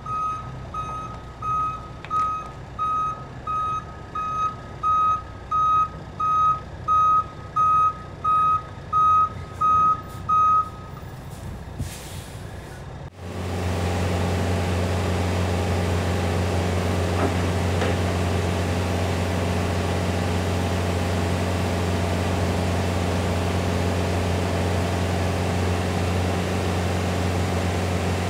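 Truck reversing alarm beeping at a single pitch, a little over once a second, about a dozen times; it stops about eleven seconds in. After a short hiss, a steady low engine hum sets in about thirteen seconds in and runs on evenly.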